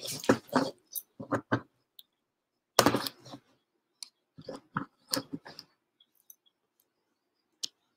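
Handling noise from the recording device being touched close to its microphone: clusters of clicks, knocks and rubbing in the first six seconds, then one sharp click near the end.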